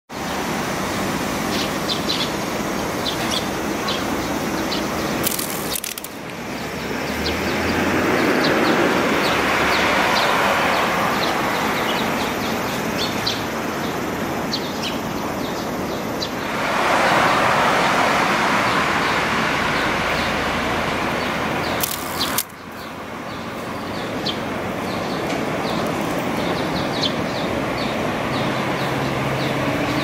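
Outdoor street ambience: a steady rush of traffic that swells twice as vehicles pass, with short high chirps now and then. It breaks off with a sharp click twice, a little over five seconds in and again past twenty seconds, where the footage is cut.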